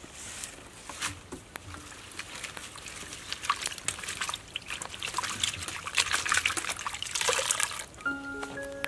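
Hands swishing and splashing leafy vegetables and flower stalks in a steel basin of water, with trickling and dripping, growing busier toward the end. Background music comes in near the end.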